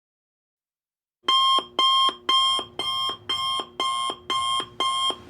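Electronic alarm beeping: a repeated pitched tone pulsing about twice a second, starting abruptly about a second in out of dead silence.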